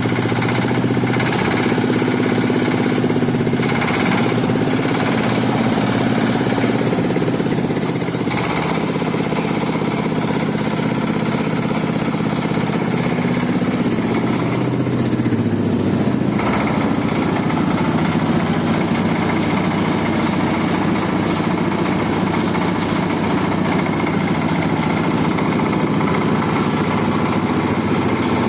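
Waste-sorting separator machine running: a steady motor drone with rattling vibration. Its pitch shifts slightly about 8 and 16 seconds in.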